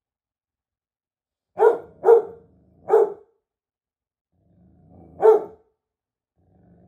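Large dog barking: three sharp barks in quick succession about two seconds in, then a low growl leading into a fourth bark about five seconds in.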